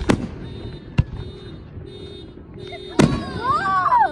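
Aerial fireworks shells bursting: a sharp bang just after the start, a smaller one about a second in, and a loud one about three seconds in. The loud bang is followed by a wavering wail of several rising-and-falling tones lasting about a second.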